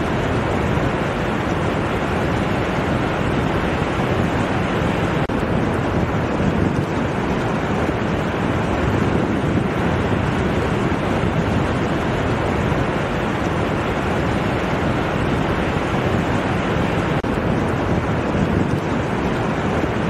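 Ocean surf breaking offshore and washing up a flat sandy beach: a steady, even rush with no single wave standing out.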